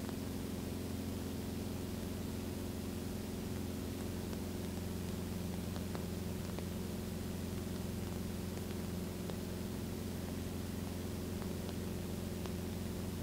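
Steady drone of a 1960 Mooney M20A's four-cylinder Lycoming engine and propeller, heard in the cabin during the climb, with an even hiss over it.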